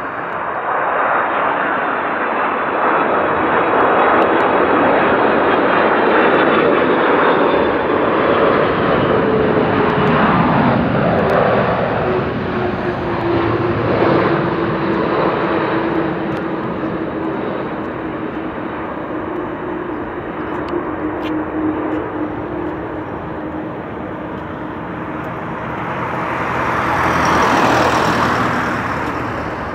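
Boeing 747-400F's four jet engines running on a low landing approach: a loud roar with a whine that slowly falls in pitch as the jet passes, then swells again near the end as it comes down onto the runway.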